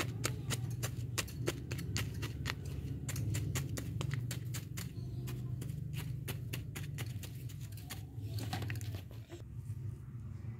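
A small plastic scoop scraping and digging through dry, gritty sandy soil, giving a quick run of small crunchy clicks, about four a second, that thins out near the end. A low steady hum runs underneath.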